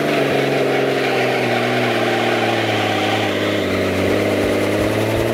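Helicopter engine and rotor running with a steady hum, with some irregular low thumps from about three and a half seconds in.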